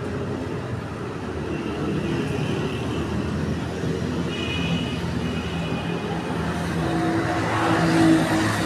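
Street traffic: motor vehicle engines running, with one passing close and loudest about eight seconds in.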